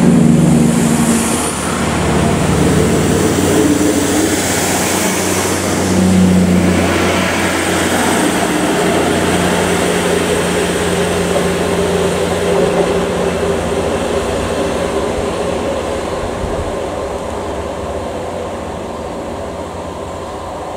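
ScotRail Class 158 diesel multiple unit pulling away under power, its diesel engines running with a steady hum that fades slowly as the train draws off.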